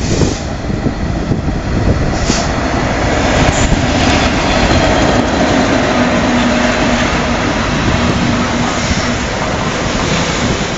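Class 66 diesel locomotive hauling an engineering train past at close range, its two-stroke V12 engine growing louder as it draws level, with a steady engine drone through the middle. The train's wagons roll past on the rails near the end.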